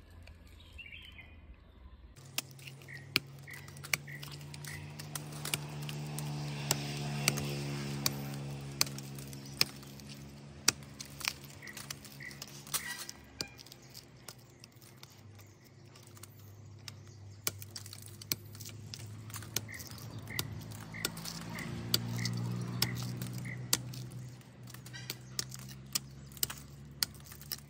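Curved steel billhook chopping into the bark of a sambrani resin tree: a long run of sharp, irregular blade strikes, the tapping cuts that make the tree ooze its resin. A low droning hum swells and fades twice, and a bird calls in short runs of quick high notes.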